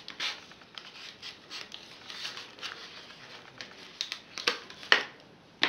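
Cardboard toy packaging being handled and pulled open: soft rustling and scraping, then a few sharp clicks near the end.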